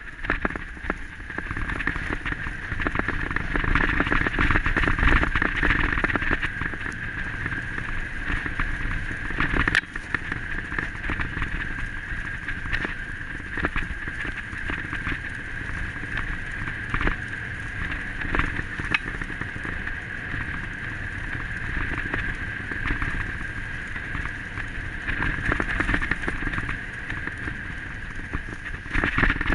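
Steady rushing noise of fast movement along a forest trail behind a pulling dog, with wind on the microphone and a steady high hum throughout. There is a single sharp click about ten seconds in.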